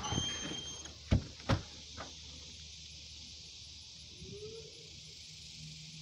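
Phone handling and two sharp door knocks about a second in, as a door is opened onto the outside, then a steady high hiss of outdoor air. Near the end a faint short rising tone sounds as the outdoor tornado warning siren begins to wind up.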